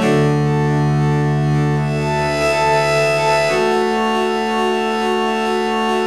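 Dense MIDI rendition of a Nokia 1208 ringtone played by a software synthesizer: thick sustained chords of many notes at once, the harmony changing about three and a half seconds in.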